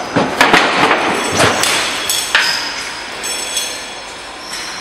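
Glazed tile roll forming machine running, steel sheet clanking and rattling through the forming rollers, with several sharp knocks in the first couple of seconds over a steady high whine.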